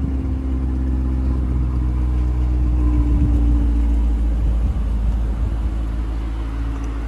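C8 Corvette's 6.2-litre V8 running at low revs as the car creeps out of a garage bay, a steady low engine note.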